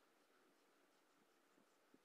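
Near silence: the sound track is all but empty.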